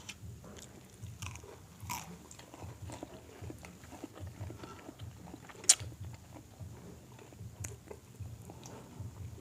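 Close-miked mukbang eating: a person biting and chewing food with moist smacking and crunching in an irregular rhythm. One sharp, louder click a little past halfway.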